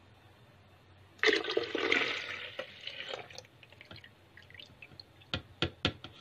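Milk poured from a cup into a blender jar, splashing over the blades. It starts about a second in, is loudest for the first two seconds, then thins to a trickle, and a few sharp clicks follow near the end.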